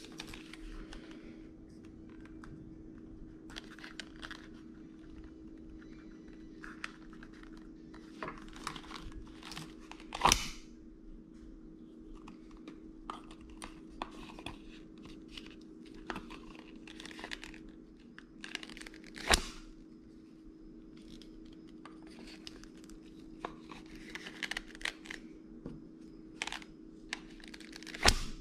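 A Buck 110 folding knife handled in a tooled leather sheath: leather rubbing and scuffing in many short strokes as the knife slides in and out, with three sharp clicks, about a third of the way in, two-thirds of the way in and loudest near the end. A steady low hum runs underneath.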